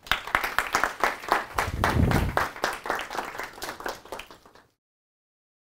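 Audience applauding at the end of a talk, a dense patter of clapping that thins out and then cuts off abruptly near the end.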